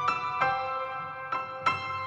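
Background music: a slow, gentle melody of single struck notes, a few each second, each fading out.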